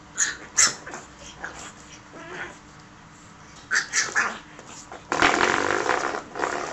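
A spring doorstop twanging as a pug puppy paws and bites at it: several short flicks, then a longer buzzing twang about five seconds in that dies away. The puppy growls along with it.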